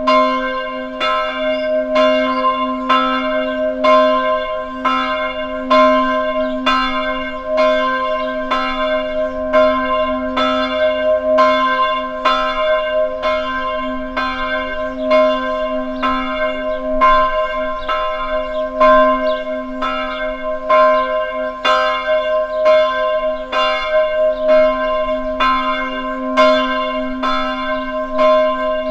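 Church bells ringing in even strokes, about two a second, each stroke's tone carrying over into the next.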